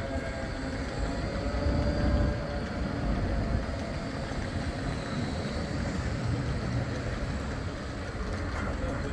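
Bombardier Flexity 2 tram running past on street track and pulling away: a steady low rumble of its wheels on the rails, with a faint whine.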